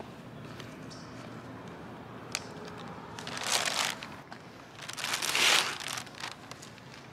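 Thin plastic trash bag rustling and crinkling in two loud bursts about a second apart, as it is handled and trash goes into it.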